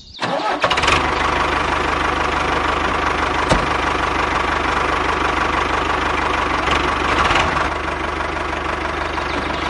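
Diesel tractor engine running steadily with a fast knocking beat, the sound of the model tractor driving. There is a short click about three and a half seconds in.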